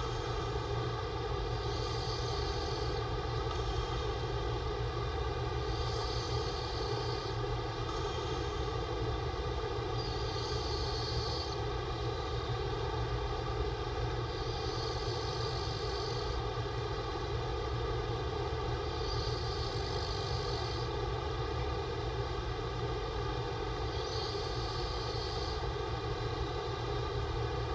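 A man's open-mouth snoring breaths, a soft hiss about every four and a half seconds, over a constant mechanical drone.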